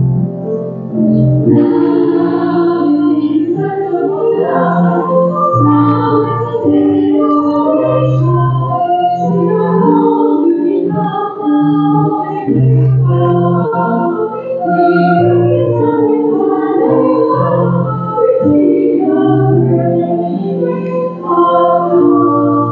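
Church organ accompanying a hymn sung by voices, with held chords under a moving melody.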